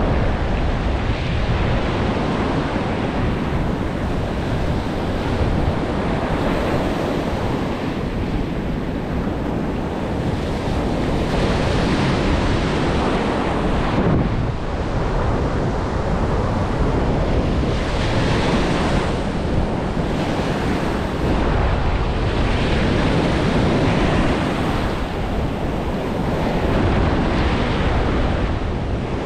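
Ocean surf breaking and washing up a sandy beach, swelling and easing every few seconds as each wave comes in, with wind buffeting the microphone.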